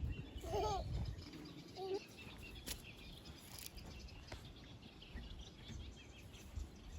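Outdoor bird and animal calls: a few short arching calls in the first two seconds, then faint high chirping.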